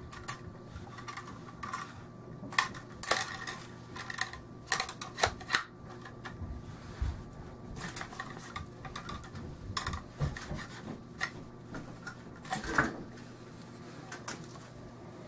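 Irregular metallic clicks and clinks from handling a partly stripped Norinco SKS rifle during cleaning. A louder knock comes near the end as the rifle is laid on the wooden table.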